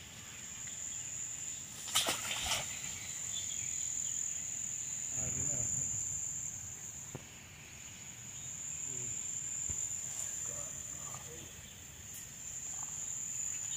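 Insects droning steadily at a high pitch, with two sharp clicks about two seconds in.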